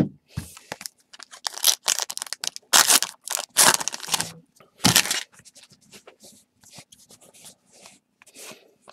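A 2017 Topps Heritage card pack wrapper being torn open: a run of sharp tearing and crinkling noises through the first five seconds or so, then softer rustling as the cards are handled.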